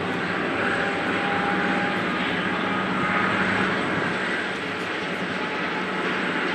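A Boeing 777-200LR's twin General Electric GE90 turbofans running at low thrust as the airliner turns and starts to taxi: steady jet engine noise with faint whining tones over it.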